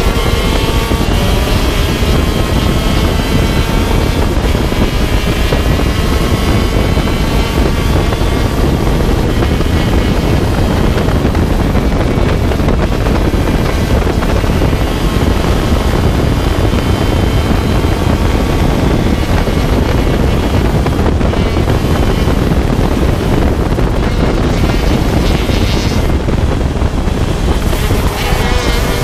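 125cc two-stroke shifter kart engine at racing speed, heard onboard with wind rushing over the microphone. Its pitch climbs as it accelerates over the first several seconds, and climbs again near the end.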